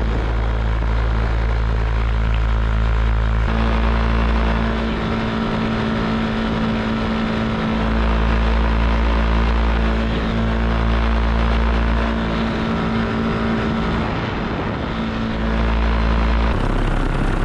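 Paramotor engine and propeller running steadily in flight, with a constant droning note whose level shifts a few times.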